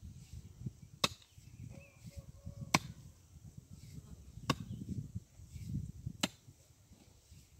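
Heavy pick-mattock (chibanca) striking hard, stony soil: four sharp blows, about one every second and three-quarters, with low rustling of loosened earth between them.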